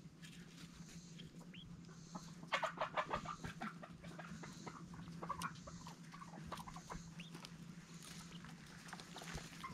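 Chickens clucking: a quick run of clucks about two and a half seconds in, then scattered single clucks, over a steady low hum.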